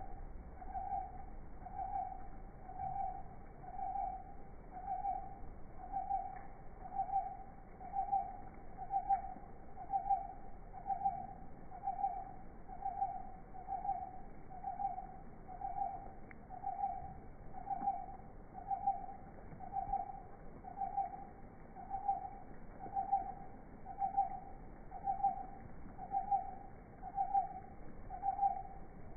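A small owl giving a long run of single, evenly spaced hoots, about one a second, each at the same steady mid pitch.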